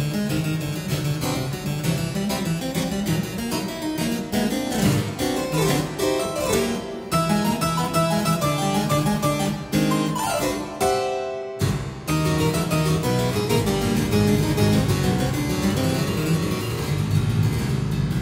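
Solo harpsichord playing fast, dense chords and runs in a driving rhythm, broken once by a brief sudden pause a little past the middle.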